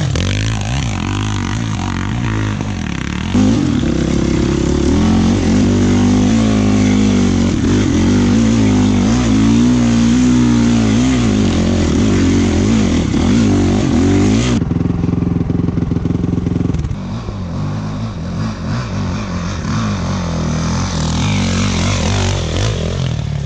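Dirt bike engine being ridden hard, its pitch rising and falling repeatedly as the rider works the throttle. About fourteen seconds in the sound changes abruptly, becoming a little quieter with the high end gone, then climbs again near the end.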